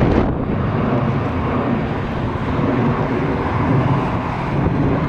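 Jet airliner passing overhead: a steady rumble of jet engine noise, mixed with wind buffeting the microphone.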